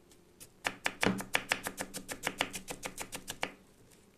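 Knife chopping red pepper thin on a wooden cutting board: a quick run of sharp taps, several a second, starting about half a second in and stopping near the end.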